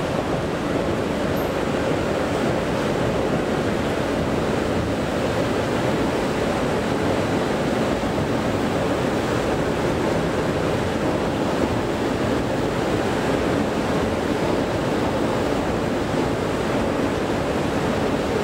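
Thyssen escalator running while being ridden downward: a steady, even noise of the moving steps and drive, with no distinct clicks or rhythm.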